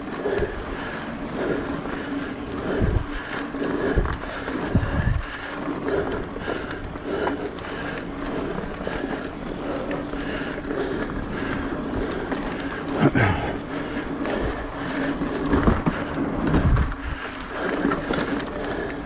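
Mountain bike riding along a dirt singletrack: knobby tyres rolling over packed dirt and dry fallen leaves, with several dull knocks as the bike hits bumps in the trail.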